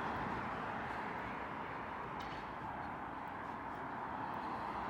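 Steady rushing noise of road traffic, easing slightly in the middle and building again near the end.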